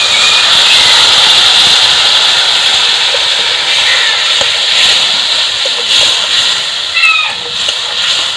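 Water poured into a hot wok of frying onion, tomato and spice paste, hitting the oil with a sudden loud hiss and sizzle that slowly dies down.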